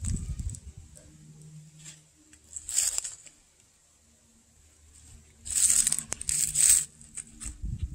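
Dry fallen leaves crunching and crackling underfoot: one step about three seconds in, then a cluster of louder steps later on, with a quiet stretch between.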